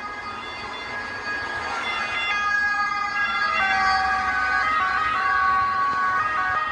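Siren of a Fiat Ducato ambulance, its steady tones switching between pitches. It grows louder as the ambulance draws near and passes, about halfway through.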